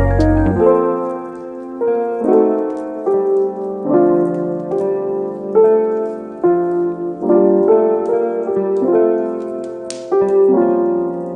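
Background piano music: a melody over chords, with notes changing about every half second. A low bass note dies away under a second in.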